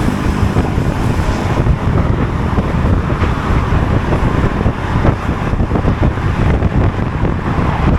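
Honda Forza 250 scooter's single-cylinder engine running at a steady pace while riding, mixed with wind buffeting the microphone and road noise.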